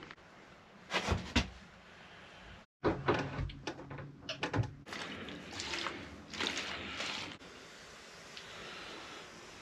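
Wooden worktop sections being handled and pushed into place: a few sharp knocks, then a run of clattering knocks and scrapes, fading to faint handling noise near the end.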